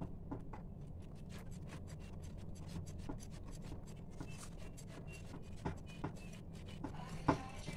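A hand beating thick gram-flour batter in a steel bowl: quick, faint, irregular squelching slaps and scrapes against the metal, over a low steady hum.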